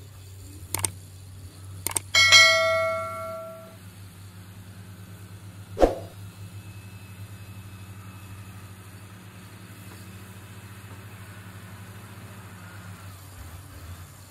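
The diesel engines of an excavator and a bulldozer run steadily with a low hum. About two seconds in, a subscribe-button sound effect plays over it: sharp clicks and then a loud bell ding that fades over about a second and a half, with another click near the middle.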